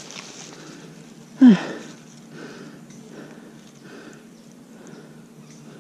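A man's short grunt of effort, falling in pitch, about a second and a half in, amid quiet breathing and the rustle of leaves.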